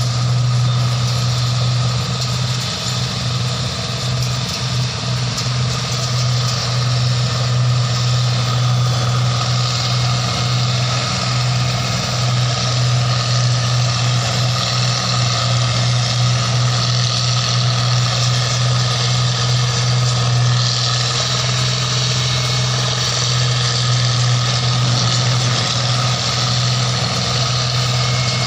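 Engine of a paddy (rice) harvesting machine running steadily: a constant low hum over a broad mechanical rush, with no change in speed.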